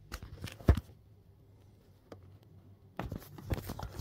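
Camera handling noise: a few knocks with one sharp thump a little under a second in, then from about three seconds a rapid run of rustles and knocks as the camera is picked up and moved.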